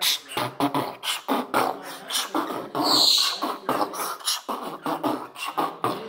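A man beatboxing: a fast, even run of mouth-made drum strokes, with a hissing stretch about three seconds in.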